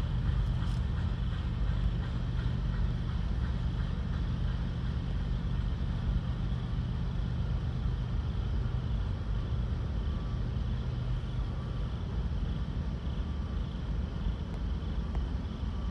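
A long freight train rumbling as it rolls away down the track, its low drone slowly fading. Crickets chirp steadily throughout.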